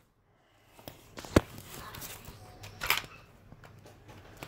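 A few scattered handling knocks and rustles over a faint background, with one sharp click about a second and a half in.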